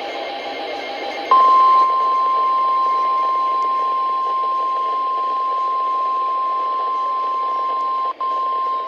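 NOAA Weather Radio warning alert tone: a single steady tone of about 1050 Hz starting about a second in, over radio hiss. It cuts out for an instant about eight seconds in, then resumes. The tone is the signal that a warning broadcast is about to follow.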